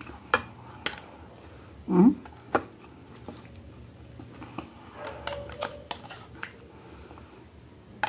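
Close-up eating sounds: chewing and mouth noises with scattered light clicks, and a short hummed vocal sound about two seconds in. Near the end a spoon clinks against a small glass jar of pepper sauce.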